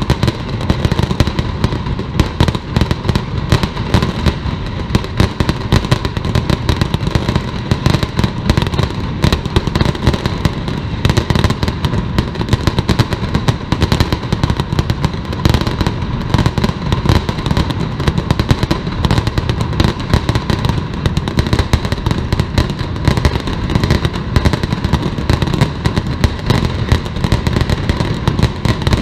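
Mascletà: a dense, unbroken barrage of gunpowder firecrackers (masclets) going off in rapid succession, one crack piling on the next with no pause.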